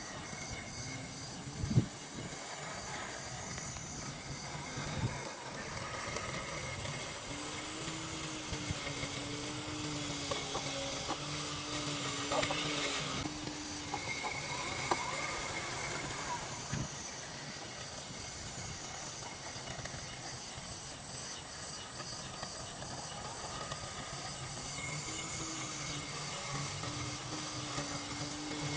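Robotic lawn mower running, with a steady hum and hiss from its electric motors. A low whine comes in for several seconds midway and again near the end, and a single sharp knock sounds about two seconds in.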